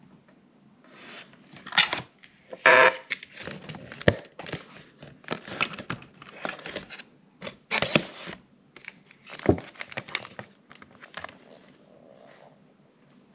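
Paper cake box being opened and plastic cake cups handled inside it: crinkling and rustling in irregular bursts, the loudest about two to three seconds in and again around eight seconds in.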